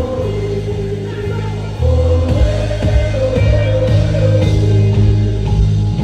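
Live Afrobeats concert music: a singer's held melody over heavy bass through the stage sound system, the music getting a little louder about two seconds in.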